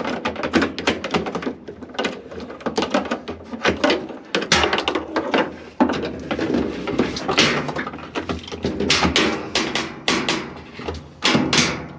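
Irregular clicks, knocks and scraping as a washing machine's suspension rod is worked up into its mount inside the cabinet.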